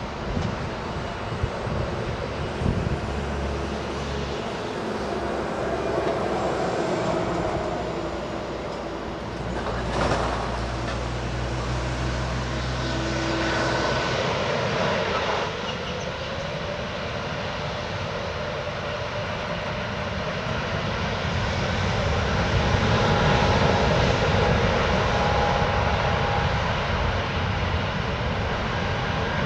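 Airliner engine noise: a continuous rushing sound with faint tones slowly shifting in pitch, growing louder in the second half.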